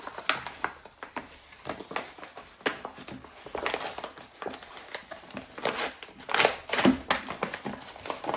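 A small envelope being opened by hand and its contents handled: irregular rustling and crinkling, loudest a little past the middle.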